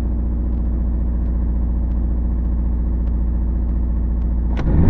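1985 Toyota MR2's four-cylinder engine running at a high idle, which the owner suspects is missing on one cylinder. Near the end the engine note changes suddenly.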